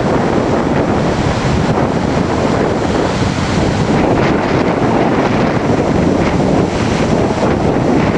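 Strong gusting wind from a windstorm buffeting the microphone, a loud, rushing, rumbling noise that rises and falls.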